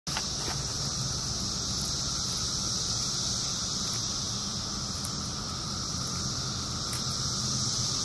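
Steady, high-pitched buzzing of cicadas, unbroken throughout, over a low steady hum.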